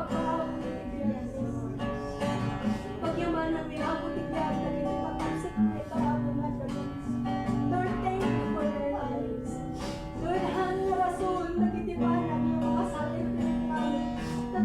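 Acoustic guitar strumming chords as worship music.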